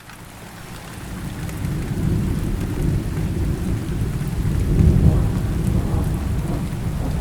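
Steady rain with a long, deep roll of thunder that swells over the first two seconds, is loudest about five seconds in, and keeps rumbling on.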